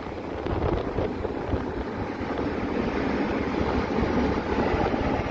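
Steady low rumble of a tower ladder fire truck's engine running, mixed with wind buffeting the microphone.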